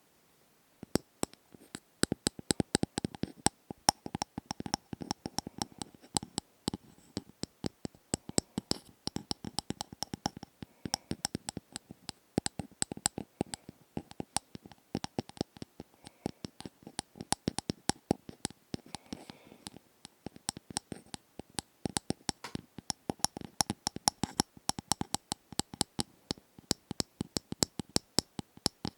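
Close-up ASMR tapping and scratching: a fast, uneven run of crisp clicks and taps, several a second, starting about a second in.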